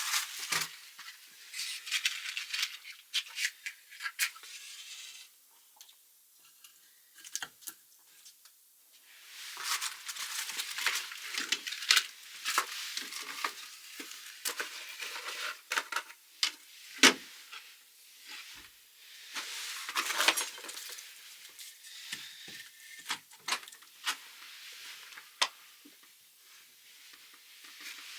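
Firewood and fire starters being handled at a wood-burning tiled stove: bouts of rustling and clattering with irregular wooden knocks, the loudest a single sharp knock about midway through.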